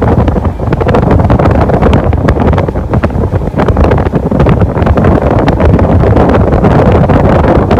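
Wind blasting the microphone aboard a passenger water-taxi boat under way. It makes a loud, rough rumble with irregular crackling gusts, mixed with the boat's engine and water noise.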